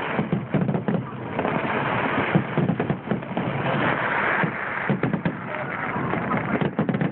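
Fireworks display: many aerial shells bursting in quick succession, a dense run of bangs and crackles.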